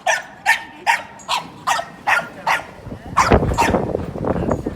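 Bulldog puppy crying in a rapid string of short, high yips, about two or three a second. In the last second and a half a louder, deeper noise comes in under the last yips.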